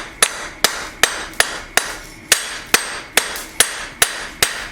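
Blacksmith's hand hammer striking hot steel on an anvil in a steady rhythm, about two and a half blows a second, each blow with a short high metallic ring: drawing out the steel bar to lengthen it.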